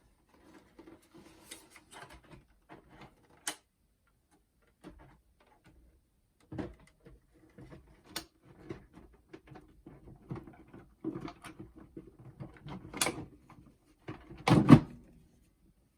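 Scattered plastic clicks, taps and knocks of hands working on an opened boombox's cassette deck and casing, with the loudest knock near the end.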